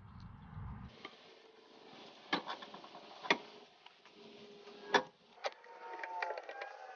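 A few separate sharp metal clicks and knocks, a second or so apart, from hand tools and the sway bar's brackets and bolts as the sway bar is refitted. Near the end a faint steady tone comes in.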